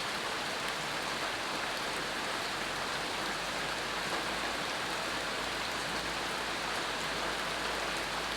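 Steady rain falling on the ground and leaves, an even rushing patter that holds level throughout.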